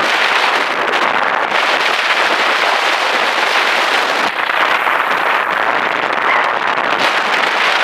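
Steady rushing, crackly noise of a car driving along a dirt track, picked up by a camera mounted on the outside of the car: wind on the microphone mixed with tyres rolling over the dirt and gravel.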